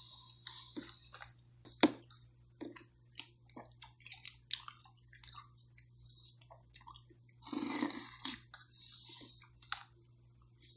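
Close-up chewing and wet mouth sounds of someone eating juicy berries, with irregular clicks of a fork against a plastic tub. There is a sharp click about two seconds in and a louder breathy sound lasting under a second about seven and a half seconds in.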